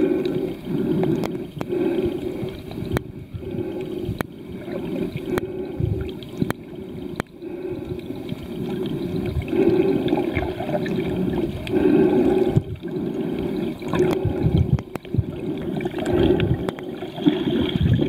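Underwater water noise heard through a camera's waterproof housing: a muffled, gurgling rush that swells and fades every second or two, with scattered faint clicks.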